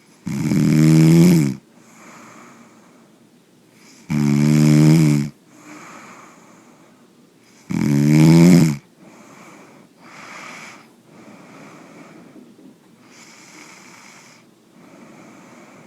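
A man snoring: three loud snores, each about a second long and about four seconds apart, then several much softer breaths through the rest.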